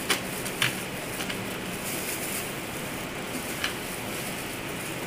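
Steady hiss of rain, with a few faint clicks and taps as the potted plant and soil are handled.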